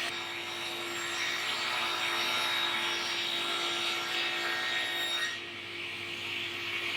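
A woodworking power tool running steadily as it cuts wood, its motor holding one pitch, with the sound thinning about five and a half seconds in.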